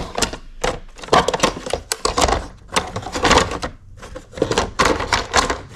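Hard plastic egg-turner trays of a mini automatic incubator being handled and fitted into place: irregular clicks and clatter of plastic on plastic.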